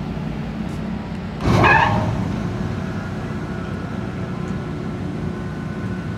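Pump jack's fixed-speed electric motor started directly without a soft starter: about a second and a half in, the drive belts squeak in a sudden half-second burst as the unit jerks into motion, the sign of a very sudden start that stresses the whole drive train. The squeal fades and the pump jack runs on with a steady hum and a faint whine.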